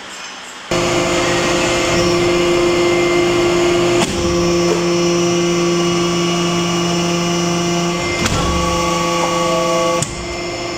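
Hydraulic press's pump and motor running with a steady, loud whine of several held tones while forming a copper bowl. The tone changes with a click at about four and eight seconds in, and the sound drops off near ten seconds.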